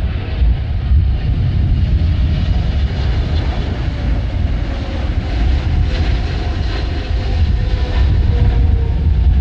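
Wind buffeting the microphone over the steady noise of a jet airliner on approach, with a faint engine whine sliding slowly lower in pitch over the last few seconds.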